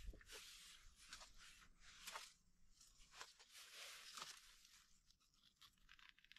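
Faint footsteps crunching through dry dead leaves and bramble undergrowth, with irregular crackles and rustles of twigs and leaves.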